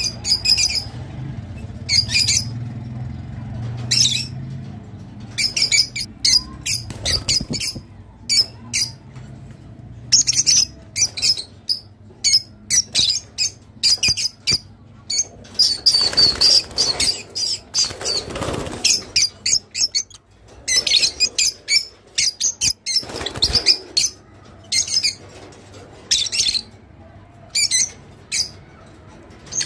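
Rosy-faced (peach-faced) lovebirds chirping: sharp, high-pitched chirps in quick irregular clusters, with a denser stretch of chatter about halfway through.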